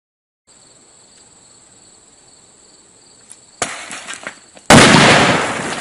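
An explosive charge going off: a sudden, very loud blast about three-quarters of the way in that dies away over a second or so, a smaller sharp crack just before it. A steady high insect buzz runs underneath beforehand.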